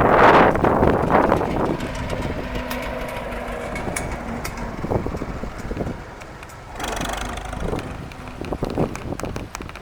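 Wind buffeting the microphone, loudest in the first second or so and gusting again about seven seconds in, over a tractor engine running faintly and steadily.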